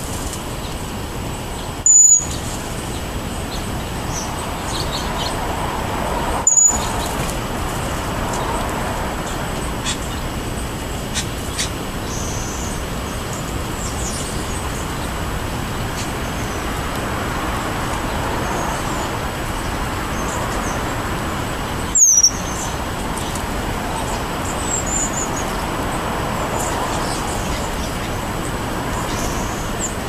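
Steady hum of road traffic, swelling and fading as cars pass, with scattered high bird chirps over it. Three short, sharp chirps stand out loudest, about two, six and a half and twenty-two seconds in.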